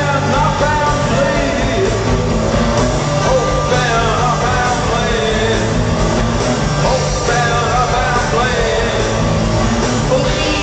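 Rock band playing live, loud and steady: a male lead voice singing over electric guitar, bass and drums, heard from the audience through a small camcorder's built-in microphone.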